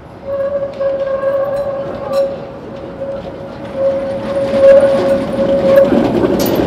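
Tatra K2G articulated tram rounding a curve at a junction, its wheels squealing on the rails in one steady held tone. A few clacks come over the rail crossings, and the running rumble grows louder after about four seconds as the tram passes close.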